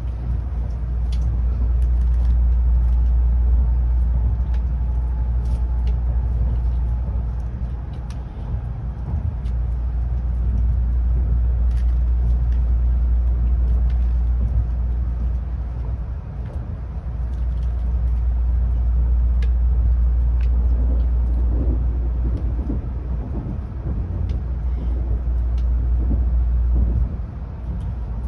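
Tokaido Shinkansen train running, heard inside the passenger car as a steady low rumble with faint scattered clicks. The rumble dips briefly a few times.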